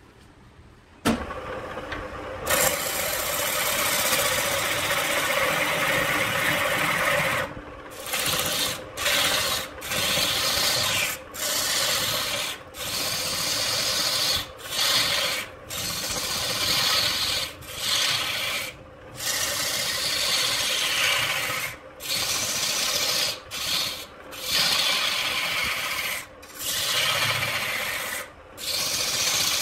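A wood lathe starts up about a second in. Then a long-handled turning tool cuts into a spinning log as it is roughed round: a rough, rasping scrape, steady at first, then broken into passes about every second and a half with short gaps as the tool is lifted and set again.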